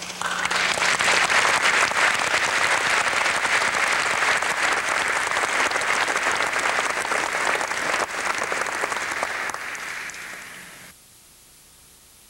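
A large audience applauding: the clapping starts suddenly, runs dense and steady, thins out about ten seconds in, then cuts off sharply about a second later.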